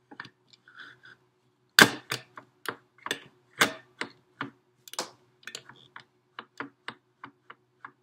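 Metal clicks and clanks of a stainless steel portafilter being fitted into an espresso machine's group head and twisted, an irregular run of sharp knocks with the loudest about two seconds in.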